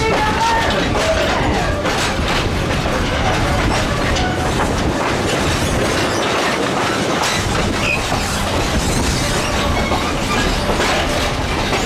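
Passenger train rolling along the track, heard from aboard a coach: a steady rumble of wheels on rail with irregular clicking and clattering.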